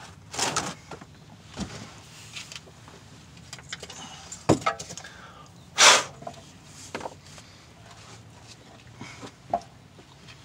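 Scattered clicks and clunks of metal parts and tools being handled in an open rear differential, with one louder clatter about six seconds in, over a steady low hum.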